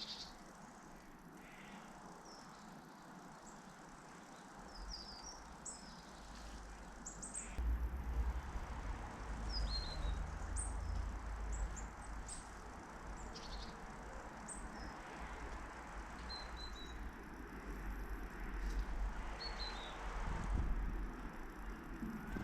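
Garden birds giving short, high chirps and tweets, scattered through, over a steady outdoor background noise. A low rumble comes in about five seconds in and carries on.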